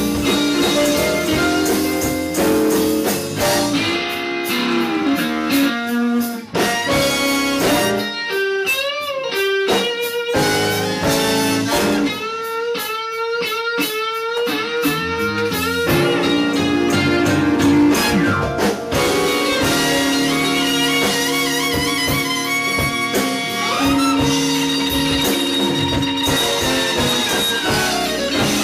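Live blues band playing, led by electric guitar with bent, wavering notes. The backing thins out for about ten seconds in the middle before the full band fills back in.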